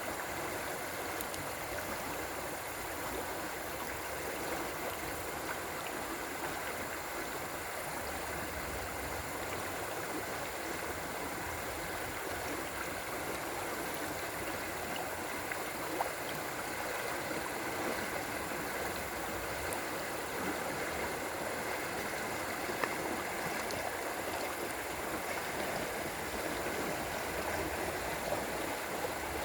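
River water flowing with a steady rushing sound, with a few faint ticks now and then.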